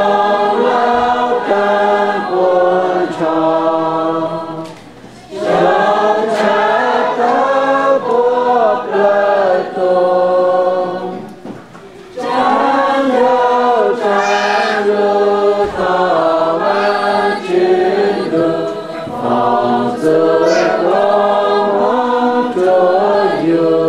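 A small mixed group of men and women singing a hymn together without instruments. The singing comes in phrases, with short breaks about five and twelve seconds in.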